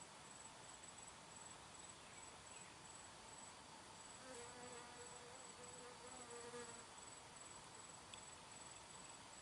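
Faint insect chirping, a high thin trill broken into short, evenly spaced pulses. A faint low hum comes in about midway and fades a couple of seconds later.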